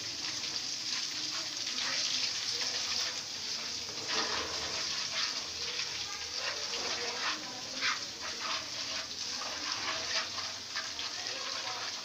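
Crushed ginger-garlic paste and fenugreek seeds sizzling in a nonstick frying pan, a steady hiss with irregular clicks as a spoon stirs and scrapes the pan.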